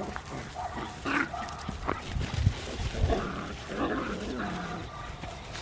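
Puppies barking and calling out at intervals while they play-fight, some calls bending in pitch, with a couple of low thuds near the middle.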